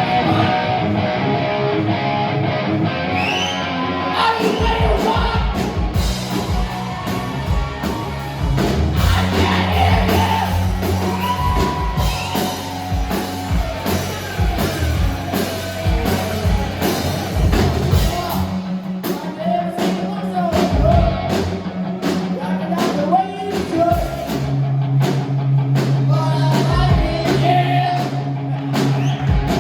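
Live rock band playing a song: drum kit beating steadily under electric guitar and sustained bass notes, with a lead singer's voice.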